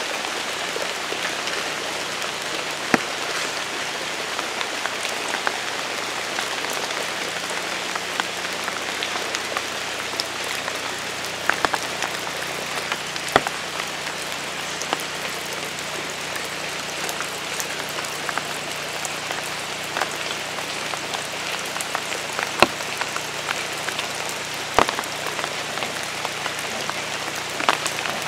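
Steady rain falling on the ground, leaves and roof tiles, with a few sharper drop hits close by.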